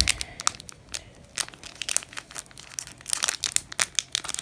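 Foil booster-pack wrapper crinkling in the hands as it is worked open to get the trading cards out: a quick, irregular run of crackles.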